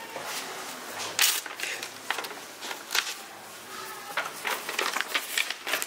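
Scissors snipping through a sheet of paper, with the paper rustling and crackling as it is handled: a string of irregular sharp snips.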